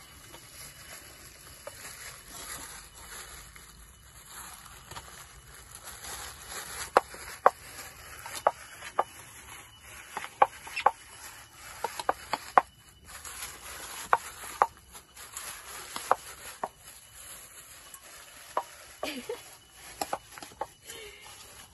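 Plastic bag crinkling over a hand as it mixes and squeezes chopped leafy greens in a steel bowl. It starts as soft rustling and turns into many irregular sharp crackles and taps from about a third of the way in.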